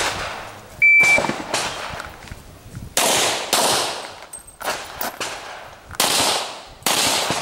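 A shot timer's start beep, a short steady high tone, about a second in, followed by a string of handgun shots, singles and quick pairs, fired irregularly as the shooter moves through a practical shooting stage.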